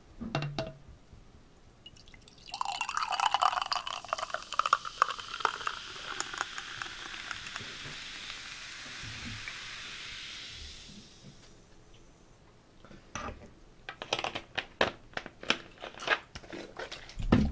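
Cola poured close to the microphone, fizzing with fine crackling for several seconds and then fading away. Near the end comes close-up chewing with crisp crunches.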